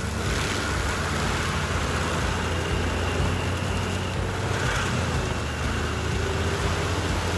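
Stump grinder's engine running steadily under load, with a constant hiss of grinding noise.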